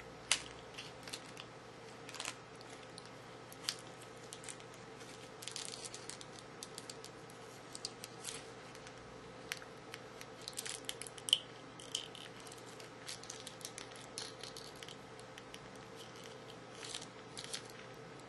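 Scattered light clicks, taps and crinkles from hands handling a small plastic Figma figure, its detachable parts and its plastic wrapping, with one sharper click about eleven seconds in.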